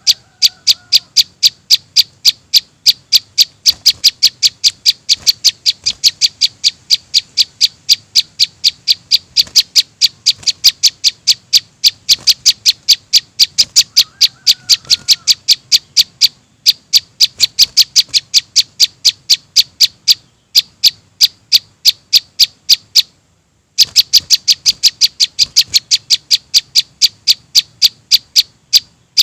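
Recorded calls of a juvenile prinia (prenjak) used as a bird lure: a fast, even run of sharp high chips, about four a second, with a brief break about three-quarters of the way through.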